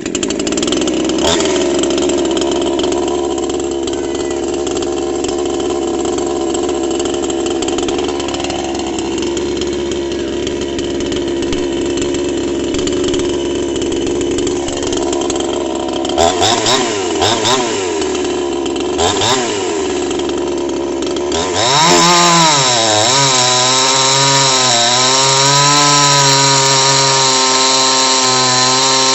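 Chinese 52cc two-stroke chainsaw engine running steadily, blipped a few times, then running higher with its pitch wavering up and down near the end.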